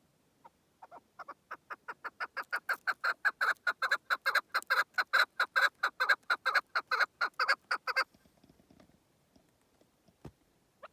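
A partridge (keklik) calling: a run of short clucking notes that starts slowly, quickens and swells to about four or five notes a second, then stops abruptly about eight seconds in.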